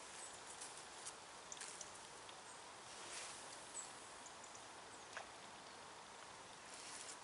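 Quiet outdoor ambience with scattered faint ticks and two short rustles, one about three seconds in and one near the end.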